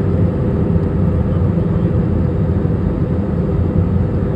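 Airliner cabin noise in flight: a steady drone of the engines and rushing air, heavy in the low end, with a faint hum held at one pitch.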